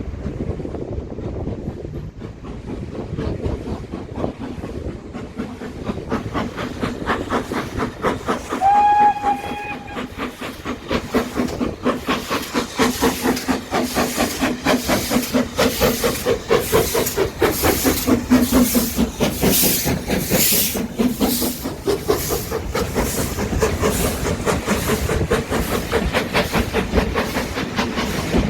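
Steam locomotive pulling away, its exhaust beats quickening as it gathers speed, with one short whistle blast about nine seconds in.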